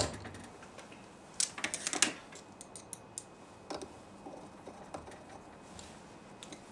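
Scattered small clicks and taps of faucet parts being handled as the lever handle of a single-lever Moen faucet is hooked back on: a sharp click at the start, a quick run of clicks about a second and a half in, then a few lighter taps.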